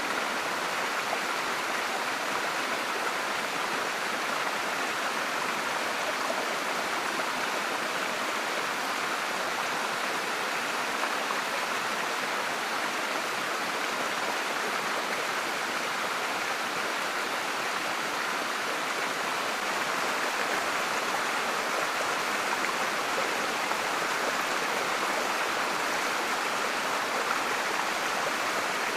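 Steady, unbroken rush of running water from a stream or small waterfall.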